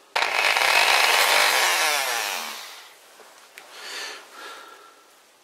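Dremel rotary tool with a sanding drum whirring at high speed against the sharp burred edge of a steel lathe spindle to deburr it, then spinning down with a falling pitch about two seconds in. A shorter, quieter whir follows near the four-second mark.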